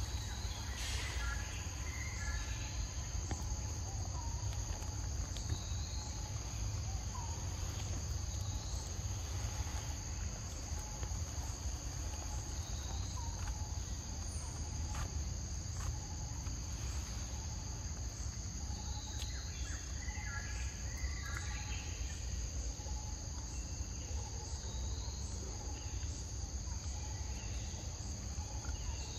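Steady chorus of forest insects, a continuous high buzzing held at two even pitches, over a low rumble, with a few faint short chirps now and then.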